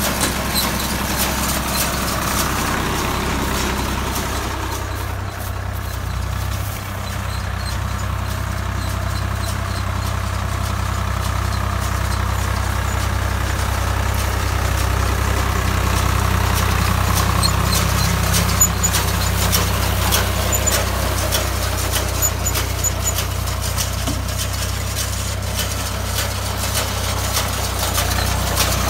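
Swaraj 744 XM tractor's three-cylinder diesel engine running steadily while driving a round straw baler, with many faint mechanical clicks over the engine note.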